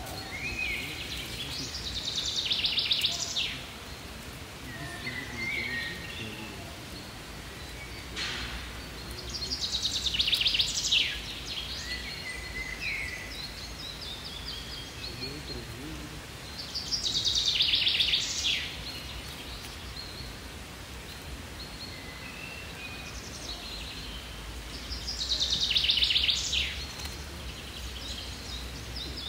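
A songbird sings the same short high phrase four times, about every eight seconds, with fainter chirps from other birds in between, over a steady low background rumble of outdoor noise.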